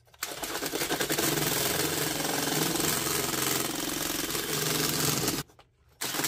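Handheld power drill spinning a 3-inch earth auger into the ground, running at full speed with a fast chatter for about five seconds, then stopping, followed by a brief second burst at the end. The auger is grinding through hard, rock-filled soil.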